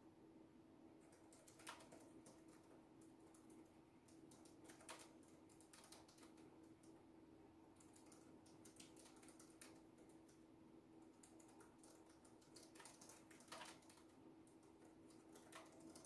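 Faint typing on a keyboard: irregular runs of soft key clicks with pauses between them and a few louder keystrokes, over a steady low hum.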